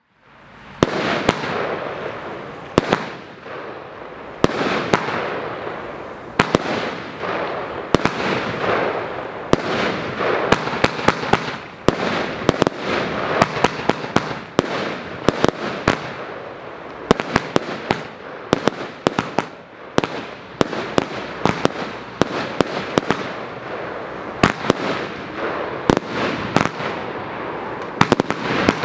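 Midgaard firework battery (cake) firing, with shot after shot of sharp bangs over a continuous crackling hiss. It starts suddenly just after the beginning, and the cracks come thicker and faster in the second half.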